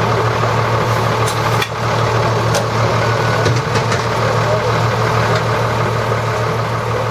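A fire truck's diesel engine idling with a steady low hum.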